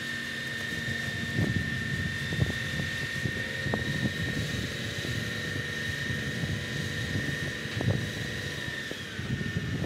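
Truck-mounted crane's diesel engine running steadily while holding a suspended house section, with a steady high whine over the engine. A few knocks come through about 1.5, 2.5, 4 and 8 seconds in.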